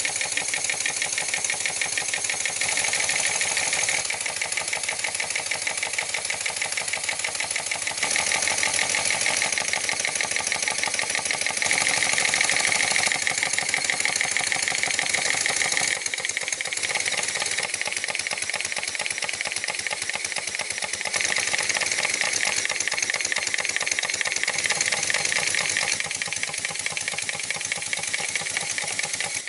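Model steam engine running fast with a loud, rapid mechanical clatter. The engine has just been refurbished, and the owner found the noise eased the longer it ran.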